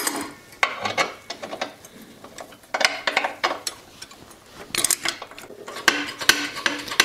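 Metal clanking and quick clicking from hand tools as a foot pedal is fitted onto a steel frame, in four short bursts.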